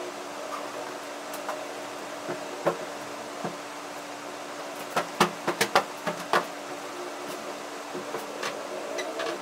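Steady mechanical hum under scattered sharp clicks and knocks from clothes and objects being handled. A quick run of about six clicks comes about five to six and a half seconds in.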